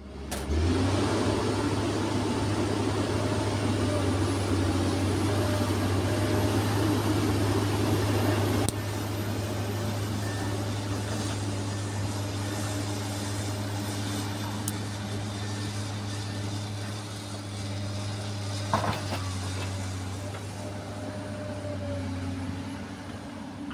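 Komatsu PC210LC-8 excavator's six-cylinder diesel engine running steadily with an even low hum. Its louder rushing noise drops about a third of the way in, and there is a single short knock near the end.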